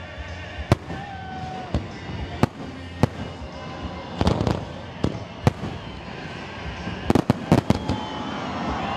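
Aerial fireworks shells bursting: a string of sharp, irregularly spaced bangs, with a quick cluster of several bangs about seven seconds in.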